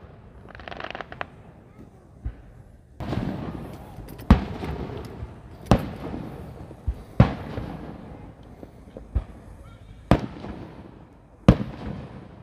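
Aerial fireworks shells bursting in the sky: a series of sharp booms, about one every second or two, the noise lingering after each before the next.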